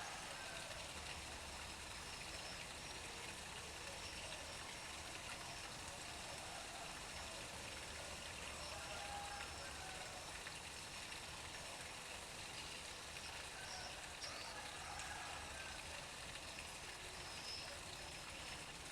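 Pumped water pouring steadily into a garden pond, an even splashing flow, with a faint low hum underneath.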